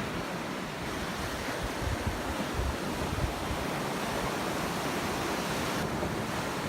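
Ocean surf breaking and washing on the beach, a steady rush of choppy waves, with wind buffeting the microphone in low thumps.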